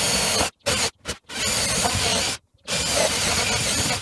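Cordless drill boring into wood in stop-start bursts, each a second or so long with short pauses between. The bit is smaller than the hole needs, so it is run several times and worked around to enlarge the hole.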